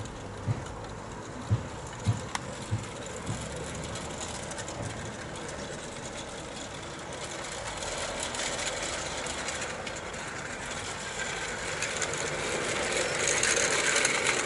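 Gearhead electric motor and bevel-gear drive of a 16mm-scale garden-railway model locomotive running, with its train of skip wagons rattling over the track, growing steadily louder as it approaches over the second half. A few dull thumps sound in the first three seconds.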